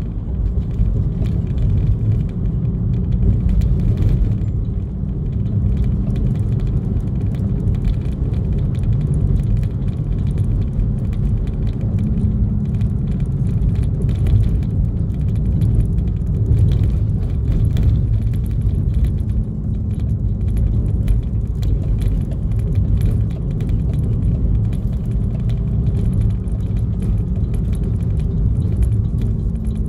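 Steady rumble of a vehicle's engine and road noise while driving up a mountain road.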